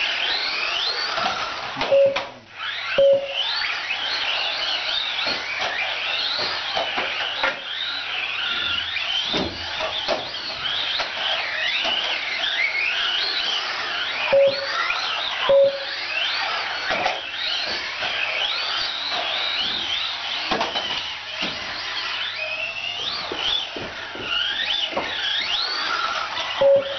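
Several Team Associated SC18 1/18-scale electric RC short course trucks racing: their electric motors whine, rising and falling in pitch as they speed up and slow down, with scattered knocks. Short beeps from the lap timing system sound twice about two seconds in, twice around the middle, and once near the end.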